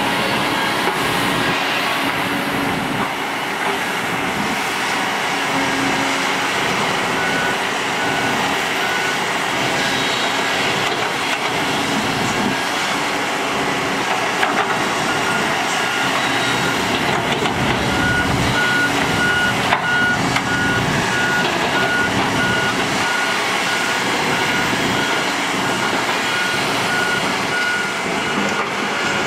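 Heavy construction machinery running steadily: the diesel engines of excavators and road rollers working. A reversing alarm beeps about twice a second, briefly about seven seconds in and then again from about fifteen seconds in.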